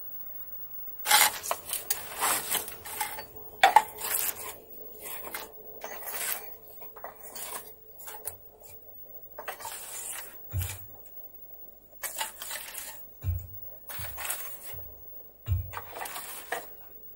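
Irregular scraping and clattering of objects being handled, with a few short dull thuds in the second half.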